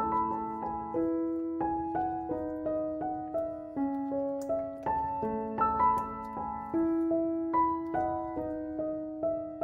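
Background piano music: a slow, gentle melody of single notes and soft chords, each note struck and left to fade.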